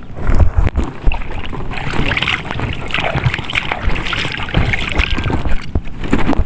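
A hooked needlefish thrashing and splashing in shallow water as it is landed, the splashing busiest through the middle, over wind and handling noise on the microphone.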